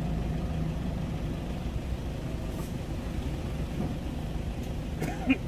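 Loaded trailer truck's diesel engine running with a steady low drone as the truck tries again to climb the ramp under its heavy load. A sharp click sounds near the end.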